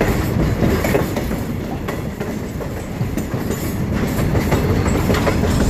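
Caboose train rolling along the track, heard from aboard: a steady rumble with a few irregular clacks of the wheels over rail joints.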